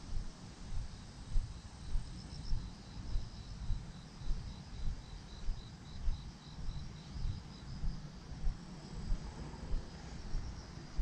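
Crickets chirping in the grass: a steady string of short, evenly spaced high chirps, about three a second, that stops about two-thirds of the way in, with a second chirper higher up at times. Footsteps on the path thud underneath at a regular walking pace.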